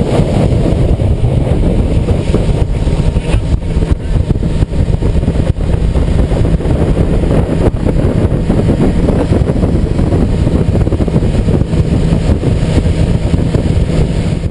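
Motorboat running under way, a steady low engine hum under heavy wind noise on the microphone.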